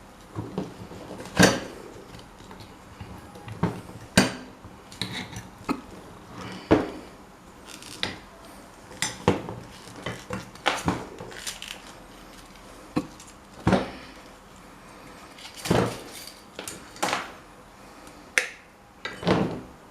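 Irregular metallic clinks and knocks, one every second or so, of metal parts and tools being handled and set down during restoration work on an old electric fan.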